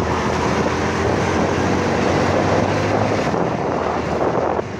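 Wind buffeting the microphone and road noise from a vehicle moving at speed, over a steady low engine hum that eases about three seconds in.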